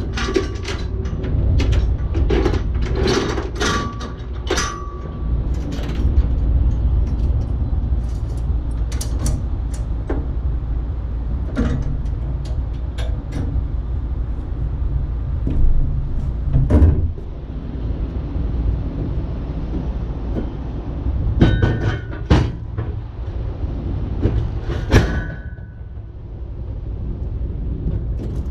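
Steel log-bunk frame being worked on a flatbed trailer's deck: scattered metal clanks and knocks, some ringing briefly, most in the first few seconds and again near the end, over a steady low rumble.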